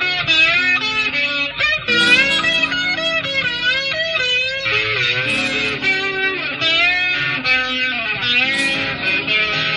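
Instrumental intro of a rock song led by electric guitar, its notes bent and wavering, over a band backing.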